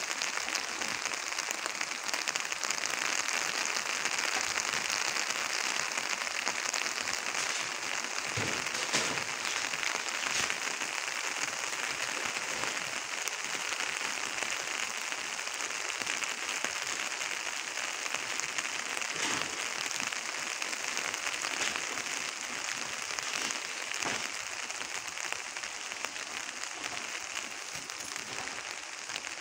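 Heavy rain falling steadily, a dense even hiss of drops on leaves, ground and roofs, with now and then a sharper close tap; it eases slightly near the end.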